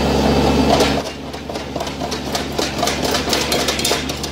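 Kubota compact tractor's engine running under a rear Land Pride rotary tiller, with rapid irregular metallic clattering and banging from the tiller as a log chain and sticks are caught and flung around its tines. The low engine hum weakens about a second in, as the knocking becomes sharper.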